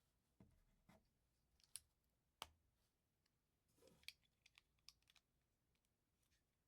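LEGO plastic bricks clicking faintly as they are handled and pressed together, in scattered single clicks with a small flurry a little past the middle.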